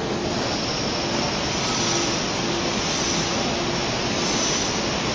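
Paper rope twisting machine for bag handles running at speed: a steady mechanical whir with a high hiss and a faint tone that comes and goes.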